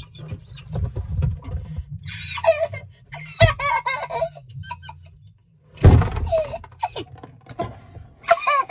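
A person's high-pitched, squealing laughter in short bursts. Two loud thumps come about three and a half and six seconds in, over a low rumble.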